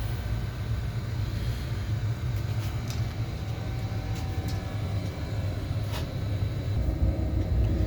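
Oil-fired boiler plant running with a steady low rumble, with a faint click about six seconds in.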